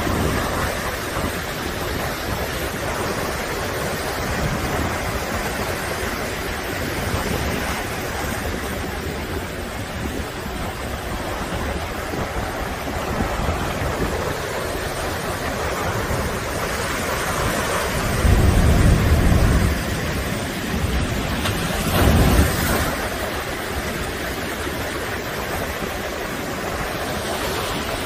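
Typhoon-driven storm surf surging and washing over a seafront promenade, a continuous heavy rush of water with wind blowing on the microphone. The sound swells twice to a louder, deeper peak about two-thirds of the way through.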